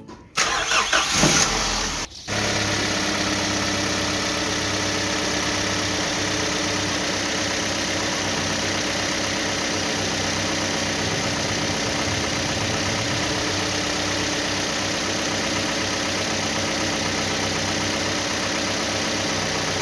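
Truck engine starting with a short uneven burst of noise, then running steadily at an even pitch and level, dubbed over the moving toy tanker.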